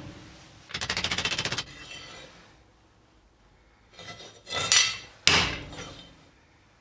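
Metal being struck to straighten out a curve: a rapid rattle of blows lasting about a second, then, after a pause, a few loud separate knocks, the loudest about five seconds in.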